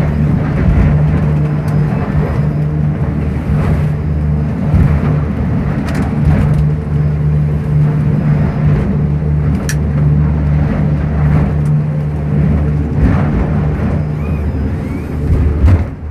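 Boat engine running with a steady low drone over rushing water, with a few sharp knocks as the boat rides through rough waves.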